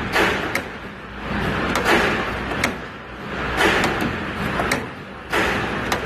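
Wire-forming machine repeating its cycle: a noisy rush about every two seconds, with sharp clicks from the tooling in between.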